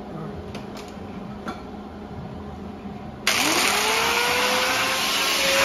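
A few light clicks of tools being handled, then about three seconds in an electric angle grinder is switched on: a sudden loud whirr whose pitch rises as the motor winds up to full speed and then holds steady.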